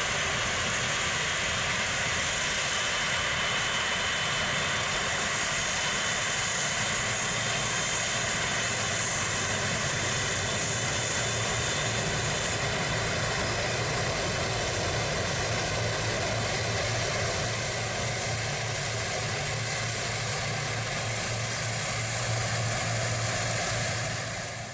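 Airbus A330 jet engines running as the airliner taxis past close by: a steady jet whine, several held tones over a rushing noise. It dips slightly past the middle and cuts off suddenly near the end.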